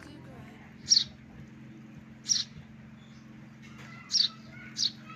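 Young Eurasian tree sparrow chirping: four short, sharp, high chirps spaced irregularly over a few seconds, the last two close together.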